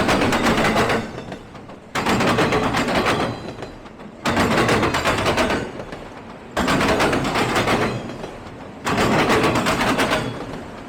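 Railcar wheels clattering over the rails of a passing train. Each burst of rapid clacking starts suddenly and fades, repeating evenly about every two seconds as car after car goes by.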